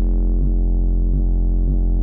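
A rap song with a deep, heavy bass line and a steady beat of about two a second, played loud through a pair of Skar VXF 15-inch subwoofers in a car trunk.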